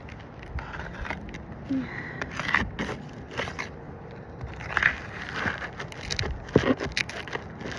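Scraping and crackling of asphalt shingles being worked loose, with irregular sharp clicks and scrapes of a tool digging at a roofing nail beneath them.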